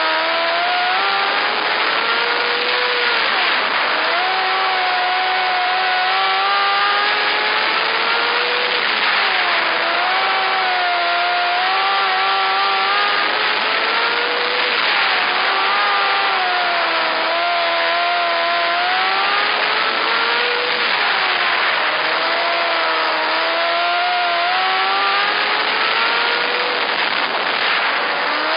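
Winged micro sprint car's engine heard from on board at race speed, its pitch climbing high along each straight, then dropping sharply and building again through the turns, in a steady cycle about every five to six seconds, lap after lap.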